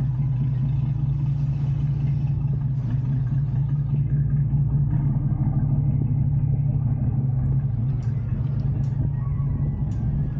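Fishing boat's engine running steadily under way, a constant low hum.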